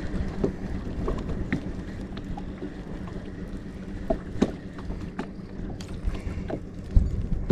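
Small waves lapping and ticking against a small fishing boat's hull, with light wind on the microphone. A single thump comes about seven seconds in.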